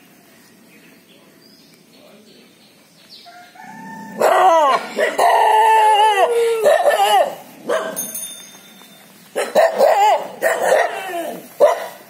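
Dogs barking and yelping: after a quiet start, a run of loud high-pitched calls begins about four seconds in, and shorter barks come again near the end.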